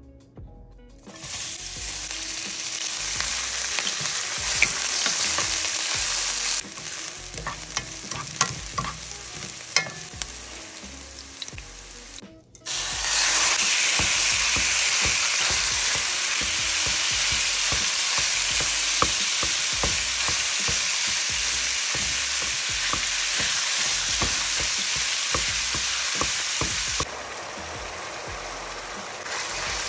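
Food sizzling and frying in hot oil in a skillet, with utensil clicks and scrapes from stirring. Partway through, after a sudden jump in level, the sizzle is louder and steady as raw ground beef fries while it is broken up with a plastic meat chopper.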